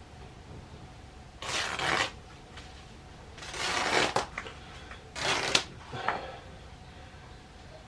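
Damp cotton rag rustling and scrubbing as it is pushed into a motorcycle engine's exhaust port, in three short bursts and a smaller fourth.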